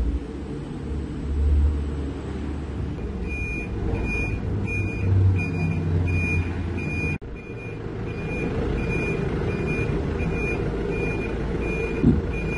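Heavy-equipment diesel engine running, with a backup alarm that starts beeping about three seconds in, roughly two beeps a second. A short thump near the end.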